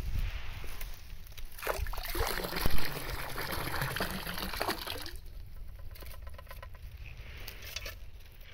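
Water splashing and trickling for about three seconds, with one sharp knock partway through that is the loudest sound.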